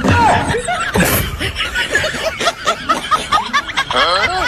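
Laughter: a fast string of short chuckles and snickers that runs on without a break.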